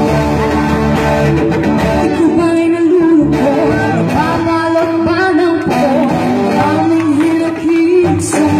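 Live rock band playing through PA speakers: electric guitar over held chords, with a female vocalist singing from about a second and a half in.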